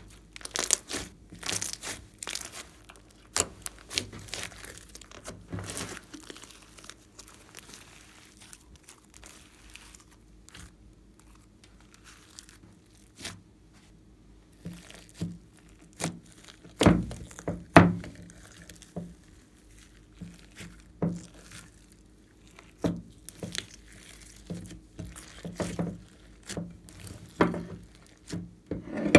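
Hands stretching, squeezing and pressing glossy slime: irregular sticky crackles and pops as trapped air bursts, with the loudest cluster of pops just past halfway.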